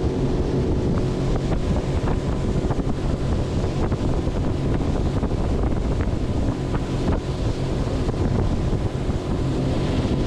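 Outboard motor of a Gheenoe LT25 skiff running steadily as the boat travels over the water, with wind buffeting the microphone.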